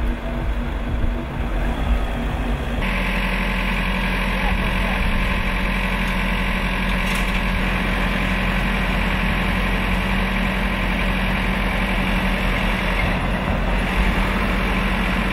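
Work truck's engine idling steadily with a constant hum. The sound shifts abruptly about three seconds in, then runs on unchanged.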